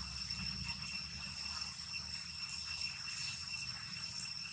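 Steady high-pitched buzzing of insects in the trees, with a low rumble underneath.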